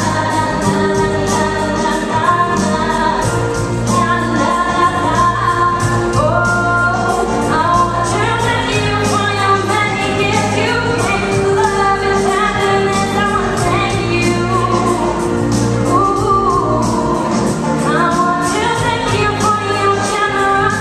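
A woman singing into a handheld microphone through a PA, her voice gliding over sustained notes, with instrumental accompaniment keeping a steady beat.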